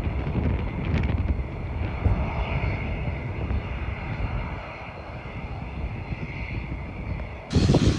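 An airliner's engines run with a low rumble and a steady high whine, easing after about five seconds. Near the end the sound changes suddenly, and gusts of wind hit the microphone.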